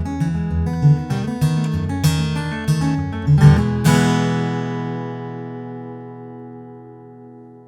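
Taylor 918e Grand Orchestra acoustic guitar (Sitka spruce top, Indian rosewood back and sides) being played, with quickly moving picked notes and chords and a full bass. About four seconds in, a final chord is struck and left to ring out, fading slowly away.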